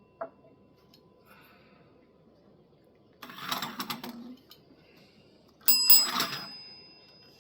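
A bell struck once, a sharp hit followed by a clear ring that fades over about two seconds: a pet cat trained to ring a bell for more food. About three seconds in, before the ring, there is a short, muffled clatter.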